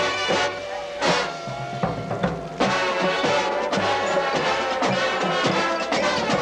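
Drum and bugle corps playing: a bugle line holding chords over marching drums that hit in a steady rhythm.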